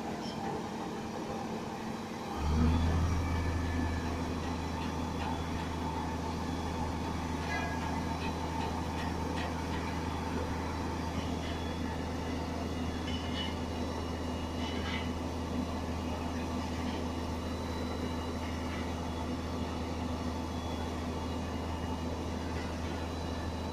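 Mobile crane's diesel engine running, stepping up about two seconds in to a steady, louder low drone as it is throttled up to drive the crane's hydraulics.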